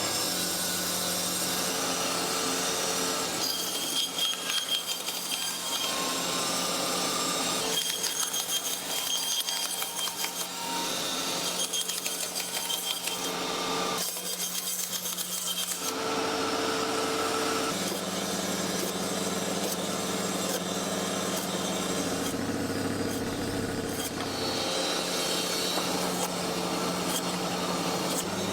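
Large meat-processing machine running with a steady motor hum.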